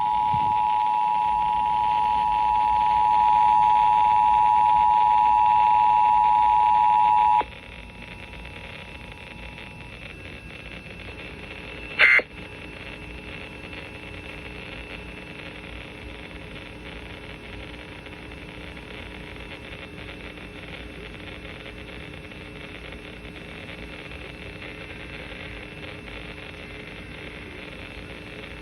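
Emergency Alert System two-tone attention signal (853 and 960 Hz together) over FM radio. It cuts off suddenly about seven seconds in, and no announcement follows, only steady radio hiss and one brief click about twelve seconds in: a failed relay of the Nationwide Periodic Test, with dead air where the message should be.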